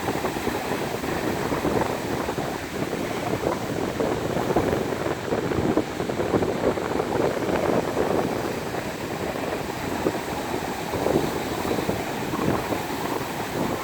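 Strong wind buffeting the microphone over the wash of surf from high-tide ocean waves, a steady rushing noise with slow swells in loudness.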